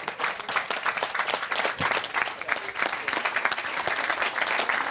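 A crowd applauding: many hands clapping at once in a dense, steady stream.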